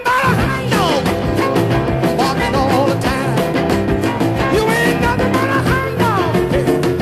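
Rock and roll band music with electric guitar over a steady drum beat, with notes sliding down in pitch about a second in and again near the end.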